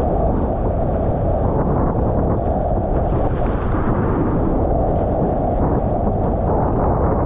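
Wind buffeting the action camera's microphone on a Nacra 20 beach catamaran sailing fast, a steady loud rush mixed with the sound of the hulls cutting through choppy water.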